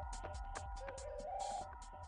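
Background music with a quick, steady beat over held tones, starting to fade out near the end.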